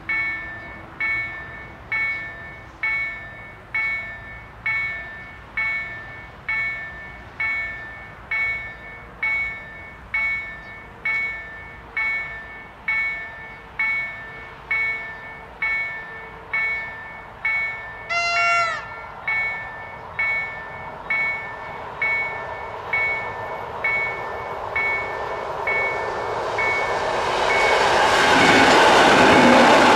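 Level-crossing warning bell striking steadily about once a second. A short rising-and-falling pitched call sounds once about two-thirds of the way through. From about 24 seconds in, an approaching EN57 electric multiple unit's running noise swells, becoming a loud rush in the last two seconds as it reaches the crossing.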